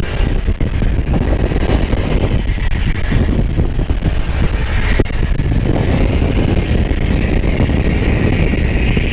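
Propeller-driven jump plane's engine running during boarding at the open cargo door, with heavy, irregular wind buffeting on the microphone.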